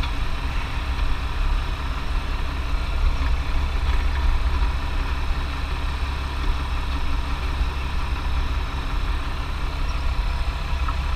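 An engine idling steadily: a low, even drone.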